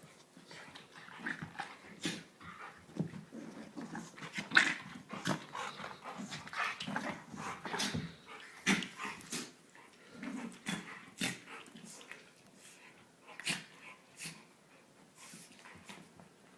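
Two dogs playing, with play-growls and scuffling broken by irregular sharp clicks and knocks, busiest in the middle.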